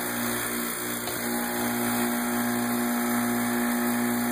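Steady hum of a running homemade fusor rig: its vacuum pumps and high-voltage supply, a constant low tone over an even hiss.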